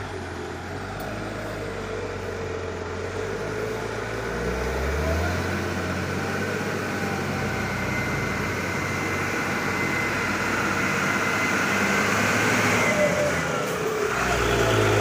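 Heavy diesel truck engine under load, growing steadily louder as it approaches, its pitch stepping up about five seconds in and again near the end.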